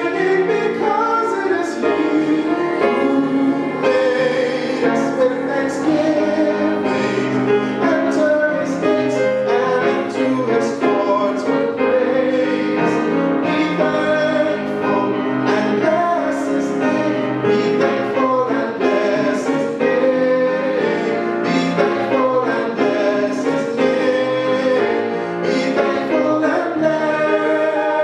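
A man singing a gospel scripture song into a microphone, accompanying himself on a keyboard; other voices may be singing along.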